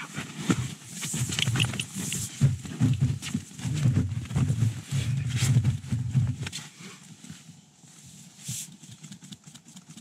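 Dogs stirring close by, a run of low, uneven animal sounds with some rustling, dying down about six and a half seconds in.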